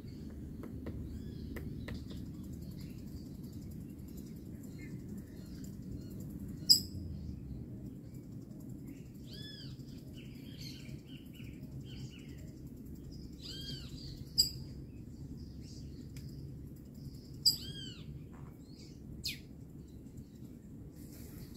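Birds calling: a few short, sharp chirps, the loudest about seven seconds in, and several arched notes that rise and fall, over a steady low rumble.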